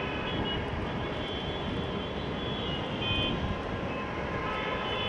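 Steady vehicle running noise, a dense low rumble, with short faint high tones coming and going.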